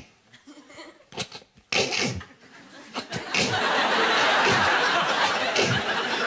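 A few short vocal sound effects in the first two seconds, then a studio audience laughing, swelling about three seconds in and holding loud.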